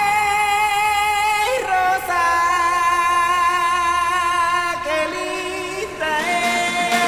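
Music with several voices holding long sung notes in harmony, the chord shifting every second or two.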